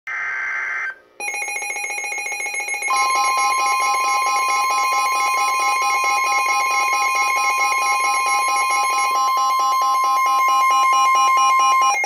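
Midland weather alert radios sounding a NOAA Weather Radio warning alert: a short burst of the digital alert header, then fast, even alarm beeping from about a second in, joined about three seconds in by the steady 1050 Hz warning alarm tone, which cuts off just before the end. It signals a severe thunderstorm warning.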